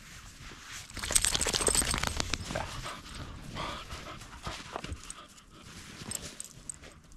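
Shar-pei dogs panting as they plough through deep snow, their paws crunching in it. Loudest from about one to two and a half seconds in.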